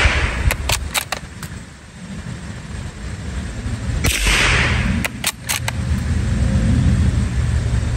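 A single sharp crack of a .22 Long Rifle shot from a Remington Sportsmaster 512 bolt-action rifle about four seconds in, with a short echo. Each shot is followed by a quick run of metallic clicks as the bolt is worked to eject the case and chamber the next round, and this happens twice: once early on after a shot fired just before, and again about a second after the crack. A low rumble builds in the background near the end.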